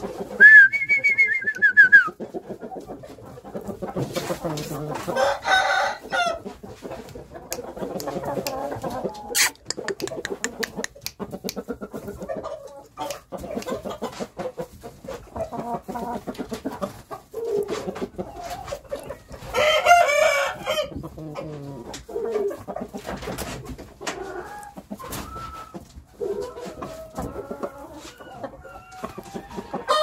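Game fowl chickens clucking and calling in their coop, with a rooster crowing once right at the start. Many sharp clicks come in between the calls.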